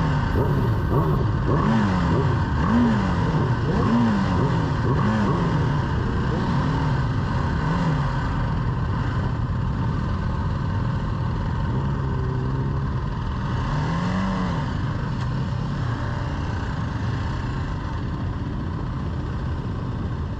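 BMW G310GS single-cylinder motorcycle engine heard from the rider's seat, its revs rising and falling about once a second through the first eight seconds, then running steadier and lower as the bike slows, with one more brief rev partway through, under steady road and wind noise.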